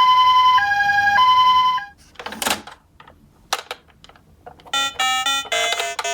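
Electronic two-tone ambulance siren in the Japanese "pee-po" pattern, going high, low, high and then cut off. A clatter and a few light clicks follow, like small toy cars knocking. About three-quarters of the way through, bright keyboard music begins.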